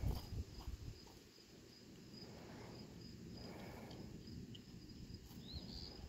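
A steady, evenly pulsing high insect chirping, like a cricket, with a low rumble in the first second and a short rising chirp near the end.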